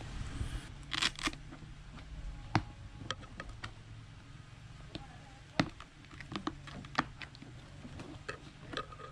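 Hands working inside a motorcycle helmet, pushing and fitting the padded liner. There is a brief rustle of fabric about a second in, then scattered sharp clicks and taps of plastic parts, over a low steady hum.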